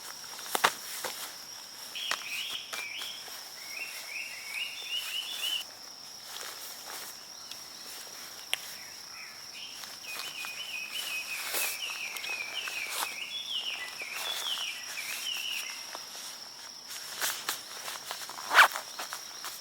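Forest ambience: a steady high insect drone, with a bird singing two runs of quick chirping notes, a short one a couple of seconds in and a longer one in the middle. Footsteps and knocks come throughout, with a sharp knock near the end.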